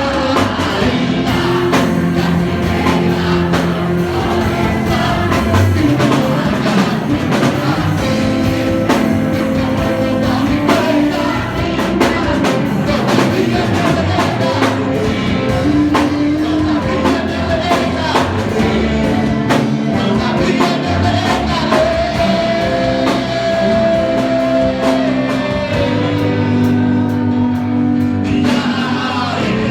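Live worship band playing with drum kit and guitar under a held, singing vocal line: a gospel worship song.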